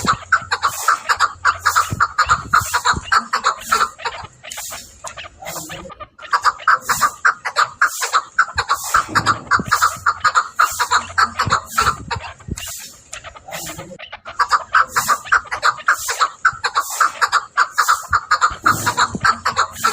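Chukar partridge calling: rapid, repeated chuck notes in three long runs of several seconds each, with short pauses between.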